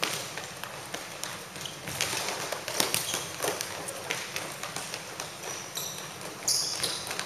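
Futsal players running and kicking a ball on an indoor sports-tile court: quick footsteps and ball strikes, with a couple of short high squeaks near the end.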